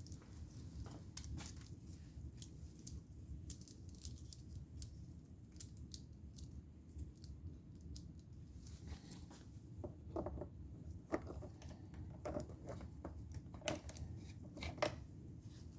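Scattered small clicks and rattles of a saw chain and guide bar being handled and fitted onto an electric chainsaw, over a low steady background hum.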